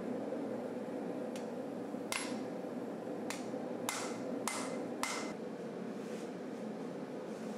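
Hammer striking a red-hot rasp-steel knife blank on the anvil: about six sharp, ringing blows between about one and five seconds in, the first one faint. A steady rushing noise runs underneath.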